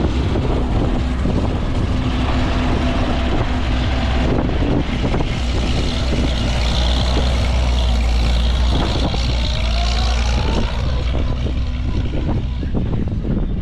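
An engine running with a steady low drone, and a whine rising in pitch about two-thirds of the way through.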